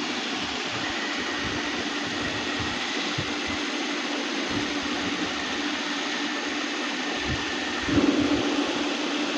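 Space sound recording: a steady, eerie rushing noise with a low steady hum and a faint high tone. The high tone stops about eight seconds in, where a brief louder swell comes.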